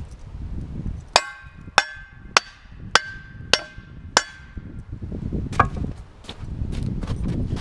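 Hammer blows on hot steel forging a small motor shaft on an improvised steel anvil: six sharp, ringing metallic strikes about 0.6 s apart, then a lighter knock, over a low steady rumble.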